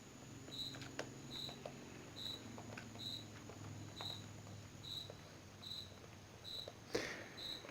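Faint scattered clicks and light scrapes of a flat-blade screwdriver tightening small screws into a plastic hair dryer housing, with a louder click about seven seconds in.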